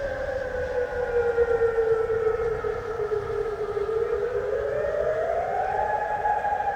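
Civil-defence warning siren wailing: one long tone slides slowly down over the first three and a half seconds, then rises over about a second and a half and holds at the higher pitch.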